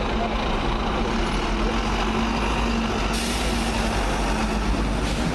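Diesel engine of a Volvo B9TL double-decker bus running as it moves off at low speed, under steady road traffic noise; the traffic gets louder about three seconds in as a car passes.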